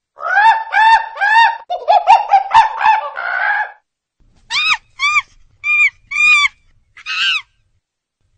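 A bird calling loudly: a quick run of arched, rising-and-falling calls for about four seconds, then a short pause and about five separate, higher calls.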